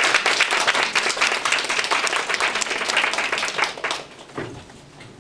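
Audience applauding: a dense spatter of many hands clapping that dies away about four seconds in.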